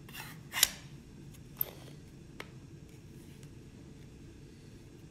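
A few sharp plastic clicks and a short scrape from the Milwaukee Rover flood light's battery-compartment housing being handled, the loudest snap about half a second in. A single click comes at about a second and a half and a faint tick at about two and a half seconds, then the sound falls to low room noise.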